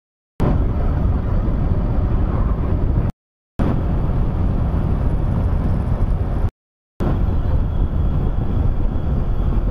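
Motorcycle cruising at highway speed, engine and road noise mixed with wind rushing over the microphone. The sound drops out to total silence twice for about half a second, where clips were joined.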